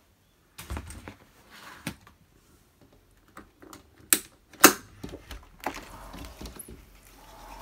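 Clicks and knocks of a sliding glass window's latch being worked by hand, with two sharp clacks about four seconds in, half a second apart.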